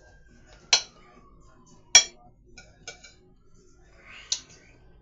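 Two sharp clinks of tableware about a second apart, followed by a few fainter clicks and a short rustle near the end.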